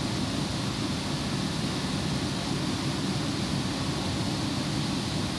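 Steady low rumble and hiss inside a Kolkata East-West Metro coach as the train runs between stations.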